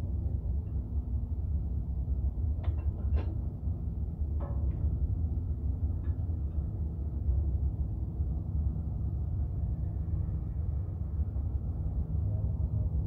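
Steady low rumble of an engine running, with a few sharp metallic knocks and clinks in quick succession between about three and six seconds in.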